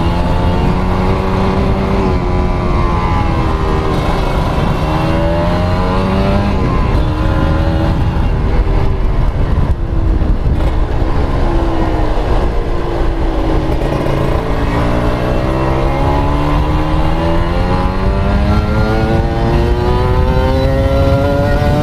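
Kawasaki Ninja RR's single-cylinder two-stroke engine, fitted with a Mikuni VM28 carburettor, running under load. Its pitch climbs for about six seconds, sinks slowly, then climbs again through the second half.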